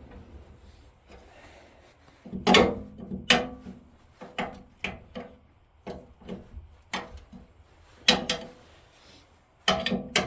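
About a dozen sharp, irregular knocks, starting about two and a half seconds in: a tool striking the auger assembly of a Craftsman (Bercomac) snowblower during work on its shear bolts.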